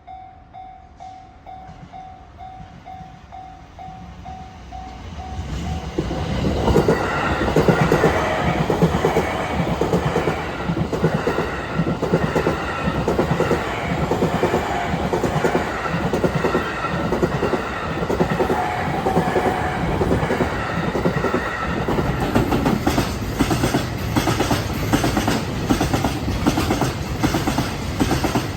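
Level-crossing warning bell ringing in a steady repeated ding a few times a second. About six seconds in, a JR Takasaki Line train arrives and passes close by, its wheels clattering over the rail joints in a fast rhythm for the rest of the time, drowning out the bell.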